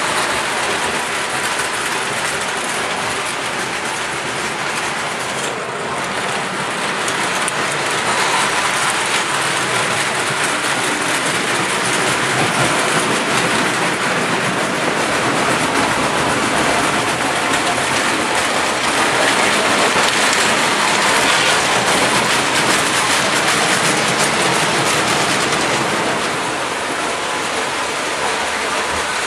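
Windup tinplate O-gauge train, a Marx #21 diesel locomotive pulling a long string of tin cars, running on O27 track: a steady metallic clatter of wheels over the rails and joints, a little louder in the middle as the train passes closest.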